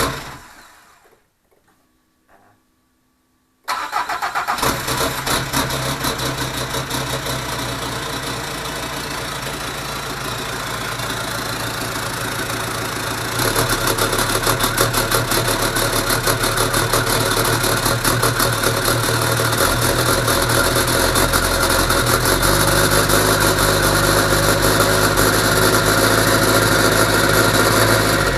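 Freshly installed Peugeot HDi diesel engine firing up on its second ever start, catching almost at once about four seconds in and then idling steadily. It runs a little louder from about halfway.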